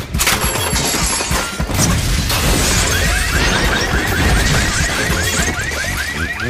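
Cartoon soundtrack: busy music mixed with slapstick crash effects, and from about halfway a rapid string of short squeaky sweeps, about five a second.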